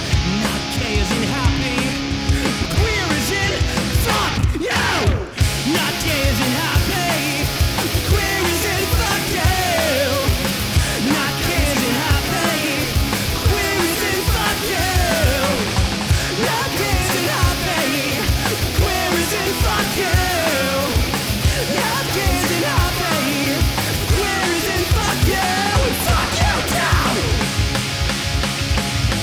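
Punk rock band playing an instrumental passage: distorted electric guitars, bass and drums. Over the pounding drum beat runs a lead line of bending notes. The band breaks off for a split second about five seconds in.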